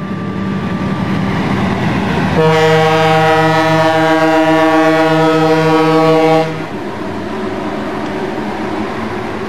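A diesel locomotive's multi-tone air horn sounds one long blast of about four seconds, starting a couple of seconds in and cutting off abruptly, over the rumble of the moving train, which carries on after the horn stops.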